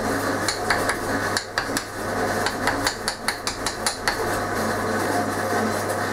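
Light, quick taps of a tool on a sand mould in a wooden moulding flask, a few a second, while patterns are bedded into the sand. The tapping stops about four seconds in, leaving a steady background hum.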